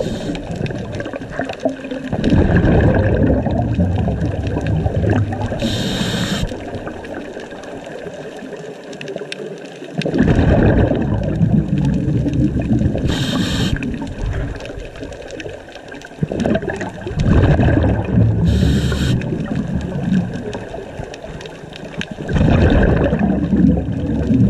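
Scuba diver breathing through a regulator underwater. Three short hissing inhales come about seven seconds apart, and four long bursts of bubbling exhaust each last about three seconds.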